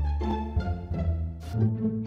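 Background music: a run of short pitched notes over a low bass line.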